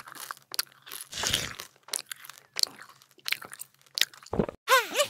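Biting and chewing sound effects, a series of short crisp crunches like bites of watermelon, with a longer crunch about a second in. Near the end a springy cartoon boing starts.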